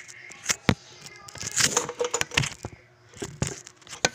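An irregular run of sharp clicks and knocks, with a denser clatter about halfway through, like hard objects being handled and set down.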